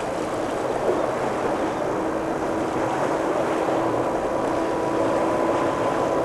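Steady rush of wind and choppy surf washing against jetty rocks, with the faint steady drone of a motor underneath from about two seconds in.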